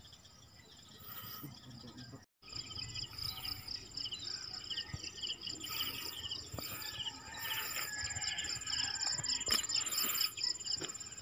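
Insects trilling in a fast, steady pulse, with repeated short high buzzes, and birds chirping. The sound drops out briefly about two seconds in, then resumes louder.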